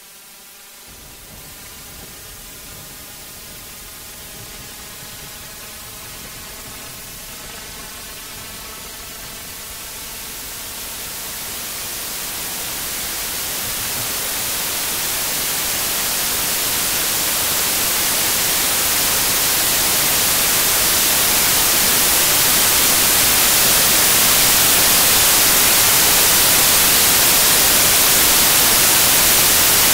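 Electronic static-like hiss that swells steadily louder and brighter. In the first ten seconds or so a faint set of evenly stacked tones rings under it, then is drowned out.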